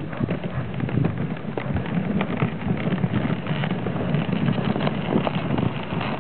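Dogsled runners sliding over packed snow: a steady scraping hiss with frequent small knocks and clatters from the sled as it rides over the trail.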